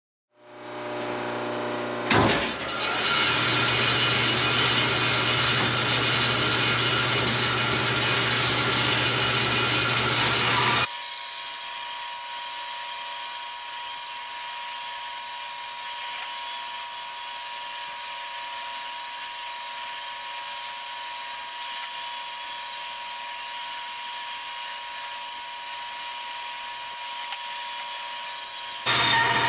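Large bandsaw running and cutting through thick pine boards. A steady low motor hum with a sharp click about two seconds in; from about eleven seconds the hum drops away, leaving a higher hiss and a steady whine as the blade works through the wood.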